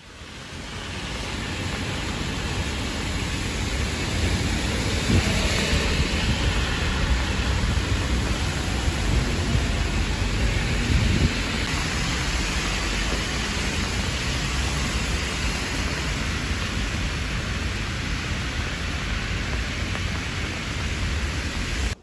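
Steady rain with wind buffeting the microphone: an even hiss over a deep rumble. It swells in over the first couple of seconds and cuts off suddenly at the end.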